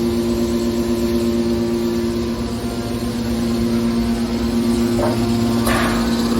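Hydraulic scrap-metal baler running with a steady, pitched hum from its pump and motor. About five seconds in come two short knocks, the second louder.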